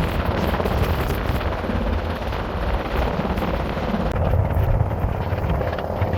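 Coast Guard rescue helicopter hovering close by, its rotor and engine running steadily, mixed with strong wind buffeting the microphone.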